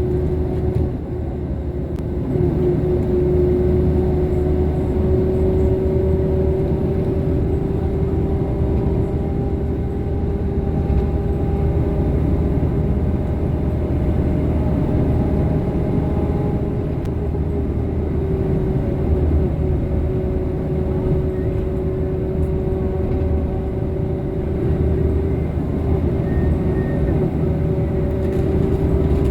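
Coach bus driving at road speed, heard from inside the cabin: a steady engine and drivetrain drone with a whine that rises slightly in pitch, over low road rumble.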